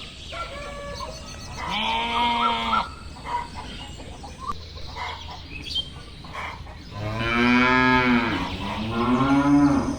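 Cows mooing: one moo about two seconds in, then two longer moos back to back near the end.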